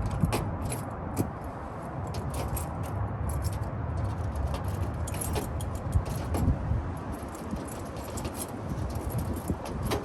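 Keys jingling and small metal clicks from handling a car door lock and its parts, irregular throughout, over a steady low rumble.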